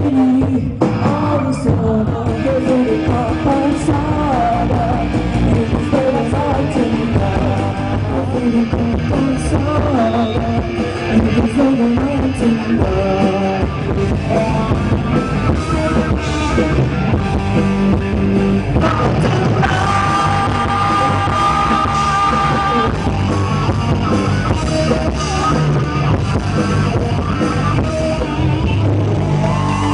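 Live amplified rock band playing: electric guitars, bass guitar and drum kit, with a woman singing.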